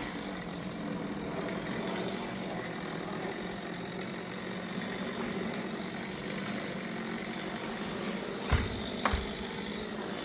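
An engine idling steadily, with two short thumps near the end.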